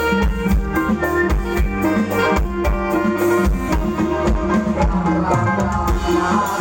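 Live Thai band playing ramwong circle-dance music, a drum kit keeping a steady beat under sustained instrument tones.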